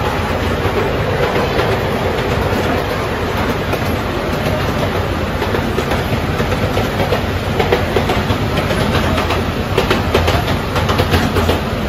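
Miniature railway train running through a tunnel: a steady rumble of the train with its wheels clacking over the rail joints, the clacks coming more often in the second half.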